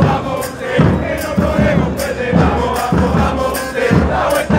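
Football supporters' end singing a chant together in unison, over a steady beat of bass drums (bombos) with sharp crashing hits on the beat.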